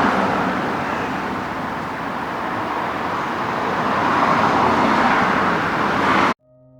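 Road traffic noise: a steady hiss of passing vehicles that swells about four seconds in, then cuts off abruptly near the end, where soft piano music begins.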